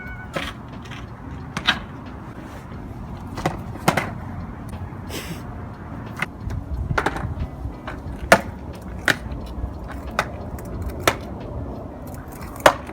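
Skateboard rolling on pavement: a steady low rumble of the wheels, broken by sharp clacks every second or so.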